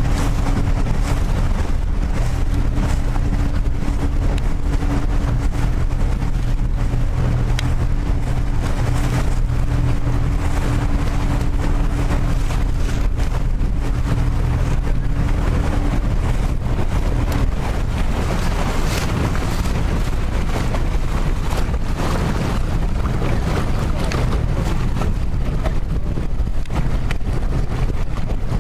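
Outboard motor idling with a steady low hum that stops a little past halfway through, under heavy wind rumble on the microphone.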